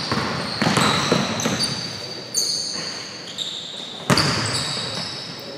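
Basketball bouncing on a hardwood gym floor amid short, high squeaks of sneakers, each knock echoing in the hall; the loudest knock comes about four seconds in.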